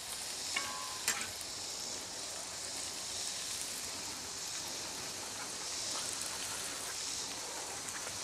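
Cornmeal-and-flour-breaded catfish pieces shallow-frying in vegetable oil on a Blackstone steel flat-top griddle: a steady sizzle. A couple of light clicks come about a second in as more pieces are set down.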